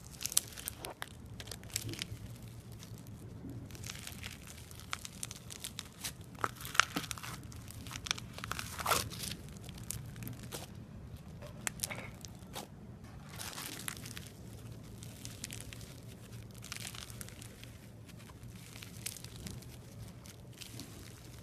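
Crunchy slime being squeezed and worked by hand, giving irregular runs of crackling, popping crunches. The sharpest crunches come about seven and nine seconds in, over a faint steady low hum.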